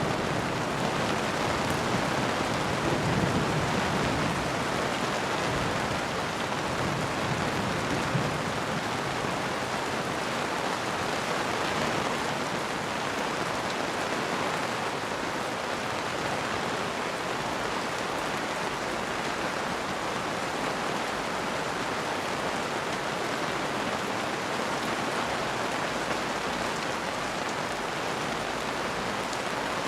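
Steady rain falling, an even hiss of drops. In the first few seconds a low rumble of thunder dies away.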